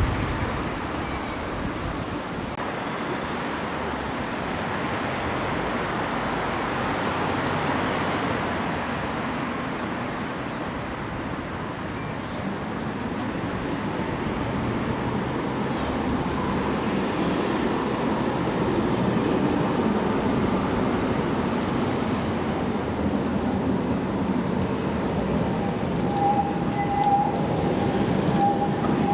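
Steady city traffic and street noise around a tram stop. Near the end a short steady high tone joins in as a tram rounds a curve close by.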